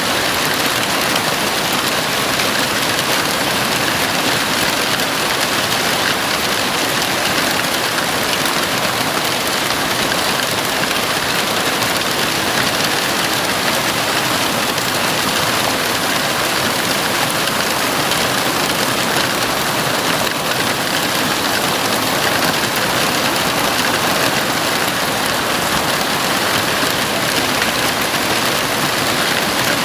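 Heavy rain falling steadily on a house roof, a loud, even hiss with no let-up.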